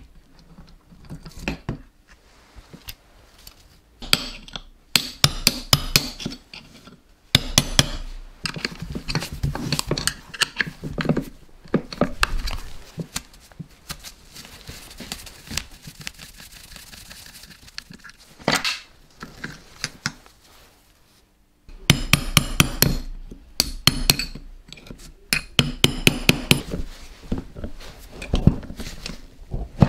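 Hand tools working on the clutch and gearbox of a Simson M541 two-stroke moped engine: several bursts of rapid, evenly spaced metal clicks, with clinks of steel parts in between.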